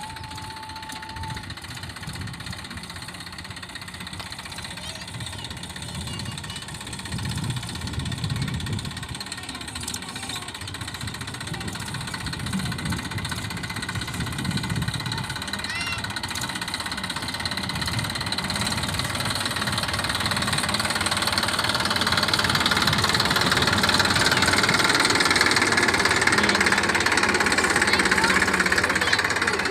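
Engine of a farm machine used for paddy threshing, running steadily with a low pulsing, growing louder through the second half as it comes closer or works harder.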